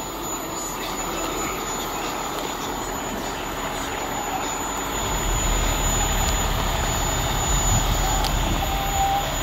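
Heavy rotator wrecker's diesel engine running steadily, with a low rumble that grows a little stronger about halfway through.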